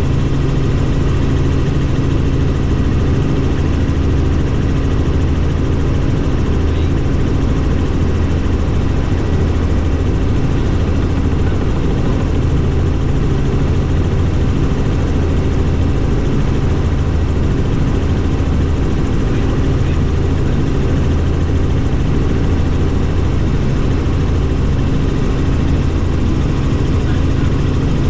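Bell helicopter's turbine engine and rotor noise heard from inside the cabin: a loud, steady, low drone with a few steady tones above it.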